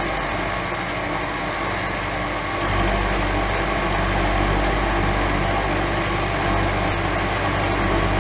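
Lagun vertical milling machine running a 3/8-inch carbide end mill at about 600 rpm, side-milling a bracket under its servo power feed: a steady machine hum. The low hum eases for the first two or three seconds, then comes back up.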